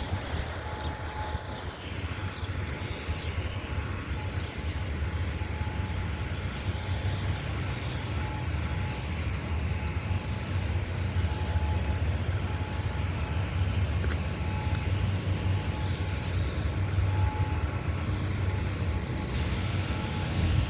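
Distant rotating outdoor warning siren (an EOW siren) sounding a faint steady tone that keeps fading in and out as it turns. A steady low rumble is louder than the siren.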